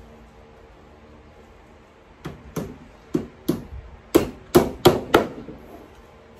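Hammer driving nails into a particleboard headboard panel: about eight sharp strikes in quick succession, starting about two seconds in and growing louder.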